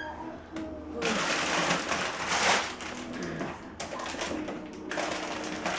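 Rummaging in a kitchen cupboard: rustling and shuffling of packages and jars being moved about, opening with a short ringing clink. The rummaging starts about a second in, stops for a moment, and starts again near the end.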